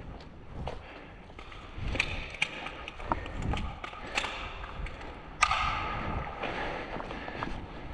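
Irregular clicks and knocks, with one sharper crack about five and a half seconds in followed by a short hiss.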